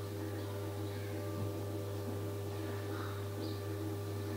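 A steady low electrical hum, like a motor or appliance running, with one light knock about a second and a half in.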